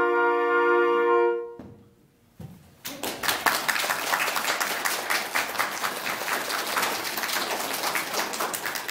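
A youth wind ensemble of flutes, saxophones and trumpets holds a final chord that breaks off about a second and a half in. After a short pause, the audience applauds.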